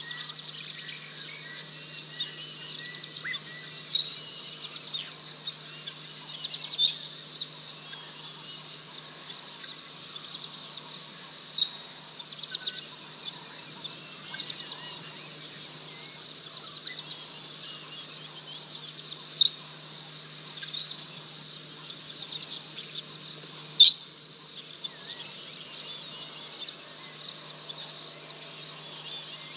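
Wild birds calling in the bush: short, sharp, high calls every few seconds, the loudest near the end, over a faint steady background hum.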